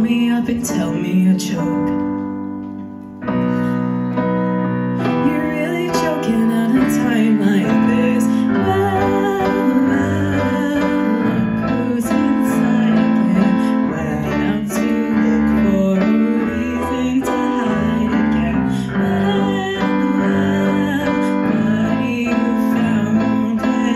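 Live keyboard playing in a piano voice, with guitar, on a Yamaha stage keyboard: a chord rings and fades about two seconds in, then the playing picks up again just after three seconds and carries on steadily.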